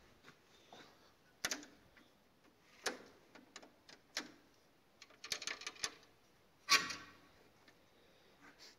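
Scattered sharp clicks and knocks, some single and a quick cluster of rattling clicks, the loudest a knock near the end, as the tractor is made ready to start, just before the engine is cranked.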